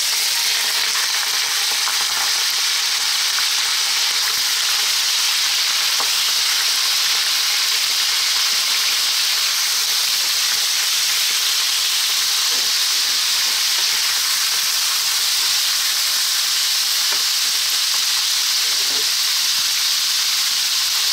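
Raw pork rib pieces frying in hot cooking oil in a nonstick wok: a loud, steady sizzle that sets in suddenly as the meat drops into the oil. A spatula stirs the pieces now and then, with a few faint ticks.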